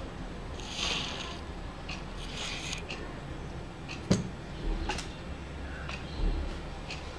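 Small plastic clicks and scrapes as a smartphone's opened body and small parts are handled during reassembly: two short scrapes, then a sharp click about four seconds in and another about a second later.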